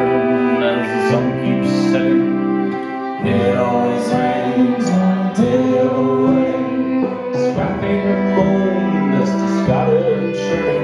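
Live chamber-folk band playing a song: acoustic guitar strumming, bowed cello and violin, with singing over them.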